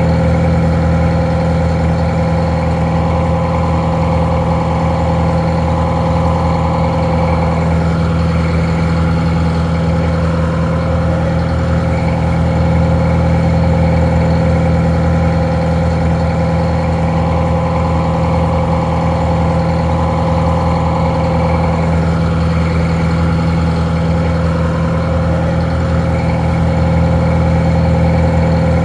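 Detroit Diesel 4-71 two-stroke, inline four-cylinder diesel engine idling steadily, sounding a little muffled.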